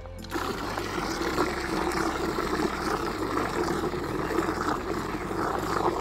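A jet of water from a garden hose spray gun pours into a bucket of car shampoo solution, splashing and churning up foam. The rushing and splashing start just after the beginning and stay steady.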